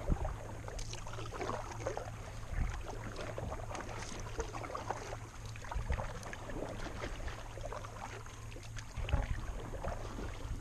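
Fishing kayak moving through shallow water: water splashing and lapping at the hull, with scattered small knocks.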